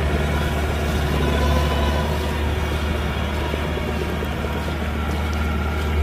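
Kubota combine harvester's diesel engine running steadily, a deep, even drone with a constant machinery hum over it.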